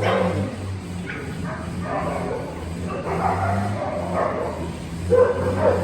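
A dog whining and yipping in several short outbursts.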